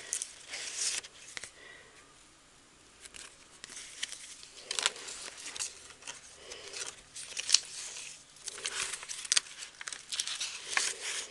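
Paper pages of a handmade journal being turned and handled: irregular rustling and crinkling with small clicks, and a short lull about two seconds in.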